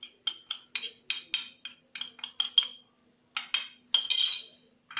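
Metal spoon tapping and scraping against a white ceramic plate to knock spices off it: a quick run of clinks, about four a second, a short pause, then a few more clinks and a longer scrape near the end.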